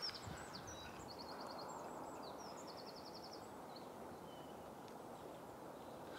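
A small songbird sings two quick runs of high chirps over a faint, steady hiss of open-air ambience.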